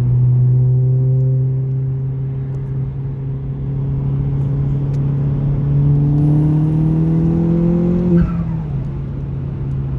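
Ford Fiesta ST's turbocharged engine pulling under load, its pitch rising slowly as boost builds. About eight seconds in the throttle is lifted: a brief turbo flutter, and the engine note drops.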